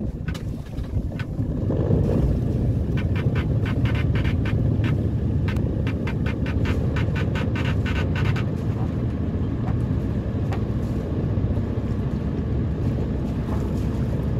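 Boat engine running steadily with a low rumble that grows louder about two seconds in. A rapid, even ticking, about four ticks a second, runs over it from about three to eight seconds in.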